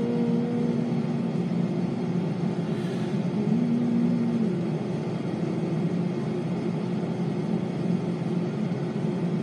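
A man's held sung note trails off in the first second or so. After that a steady low rumbling noise carries on, with one short low note about four seconds in.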